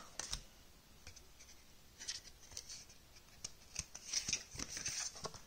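Large round card-stock cards of the Wild Unknown Archetypes oracle deck being handled and laid on a pile: faint rustling and soft flicks of the cards, starting about two seconds in.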